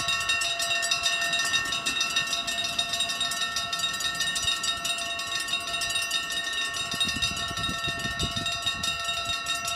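Dutch level-crossing warning bells ringing continuously with fast, even strikes, signalling that the automatic half-barrier crossing is closing ahead of an approaching train.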